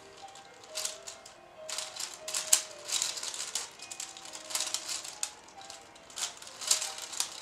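Plastic 5x5 speedcube being turned fast: its layers click and clatter in irregular bursts as the turns go through. Faint music with held notes plays underneath.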